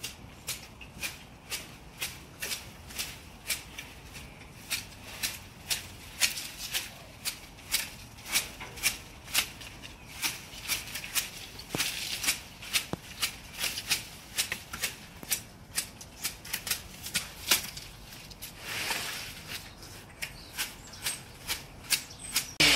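Hand pruning shears snipping through foliage in sharp clicks, about two cuts a second, with a brief rustle of leaves near the end.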